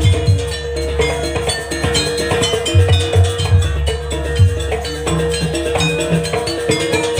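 Live Javanese jaranan dance music from a gamelan-style ensemble: drums and struck bronze gongs and gong-chimes playing a busy, driving rhythm over one steady held note.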